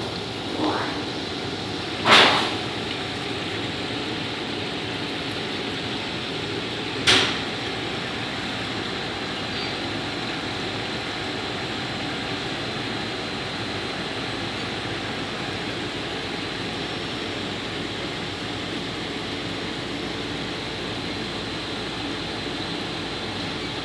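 Automatic offset-plate washing machine running, its motor and rollers making a steady hum, with a loud sharp knock about two seconds in and a smaller one about seven seconds in.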